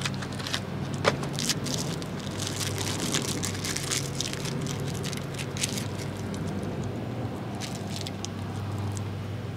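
Wrapper of a small candy crinkling and crackling in irregular snaps as fingers pick it open, over a steady low hum.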